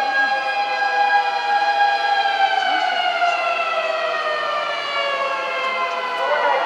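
Fire engine siren wailing, its pitch sliding slowly down. Near the end another siren's pitch starts to rise over it.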